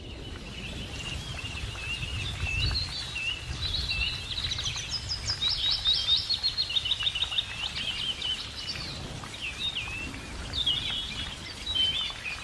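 Songbirds singing: many quick chirps and short rapid trills, several voices overlapping, over a low steady rumble.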